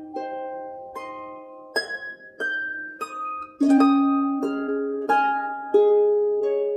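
Background music: a slow melody of plucked notes, harp-like, each ringing out and fading before the next.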